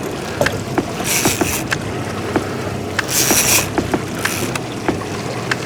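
Boat out at sea with water hissing along the hull in short bursts every second or two, over a low running rumble, scattered with sharp clicks and knocks from gear on deck.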